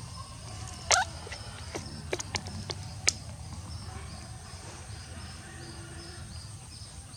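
A baby monkey's short rising squeak about a second in, followed by a few sharp clicks. Through the second half, a faint high chirp repeats about three times a second.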